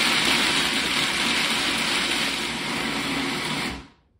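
Food processor running at full speed, chopping almonds and pistachios into small crumbs with a steady, loud whirring grind. It cuts off sharply near the end.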